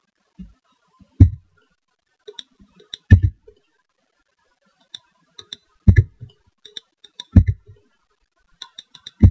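Irregular clicking of a computer mouse and keyboard as the software is operated. Four of the clicks are louder, each with a dull thud, and lighter ticks fall between them.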